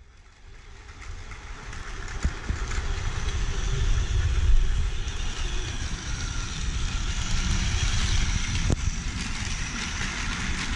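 Battery-powered Plarail toy train (Shonan-Shinjuku Line set) running along plastic track: a steady motor whir and wheel rattle that swells over the first two seconds, with a sharp click about nine seconds in.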